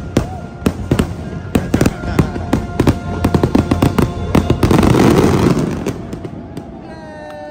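Fireworks going off in quick succession, many sharp bangs over the show's music soundtrack, loudest in a dense rush about five seconds in; the bangs stop near the end, leaving the music.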